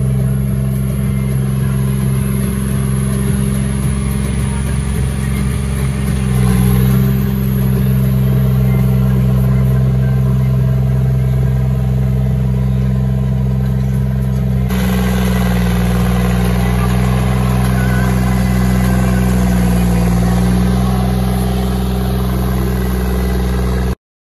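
Tractor's diesel engine running steadily under load while ploughing, picking up revs about six seconds in. The sound cuts off suddenly just before the end.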